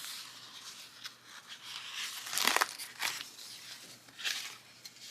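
Paper planner pages being handled: a few short rustles and crinkles, the loudest about two and a half seconds in.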